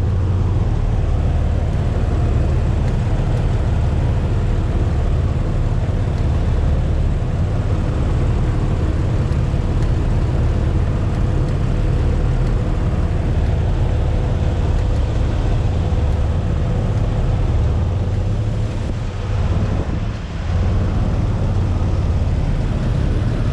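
Jeep Wrangler TJ's 4.0-litre straight-six engine idling steadily, with the weird clicking noise at idle that the owner hears from one side of the engine but can't pinpoint. The sound dips briefly near the end.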